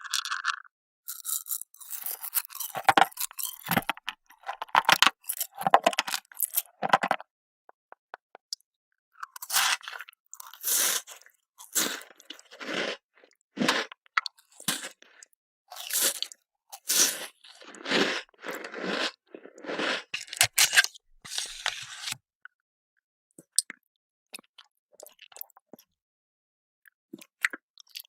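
Hard round candies crunched and chewed close to the microphone: a long run of loud, irregular crunches with a short break about seven seconds in, thinning to faint clicks over the last several seconds.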